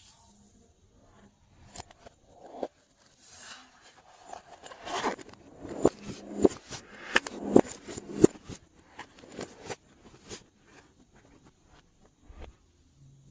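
Glossy slime being worked by hand, giving off sticky clicks and pops. A run of louder sharp snaps comes through the middle, then it thins to softer clicks.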